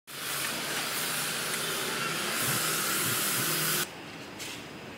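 A loud, steady hiss like rushing air that cuts off suddenly near the end, leaving quieter background with a few light clicks.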